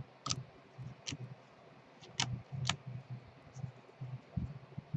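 Baseball trading cards being handled and flipped through by hand: a few sharp, light clicks and soft taps, spaced irregularly.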